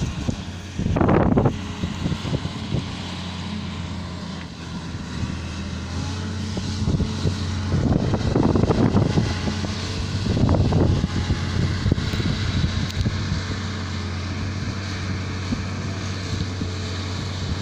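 Truck diesel engine running steadily, a low drone. Gusts of wind buffet the microphone about a second in and again from about eight to eleven seconds in.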